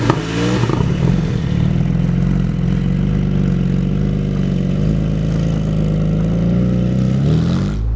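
Porsche 718 Boxster Spyder's 4.0-litre naturally aspirated flat-six running. The revs climb in the first half second, then hold steady, with a short change in revs near the end.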